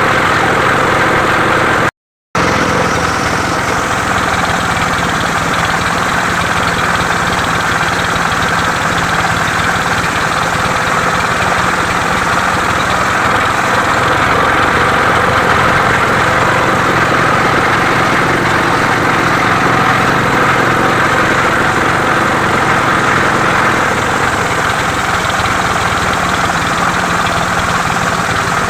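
The engine of a homemade mobile circular saw rig running steadily at a constant speed. It cuts out completely for a moment about two seconds in.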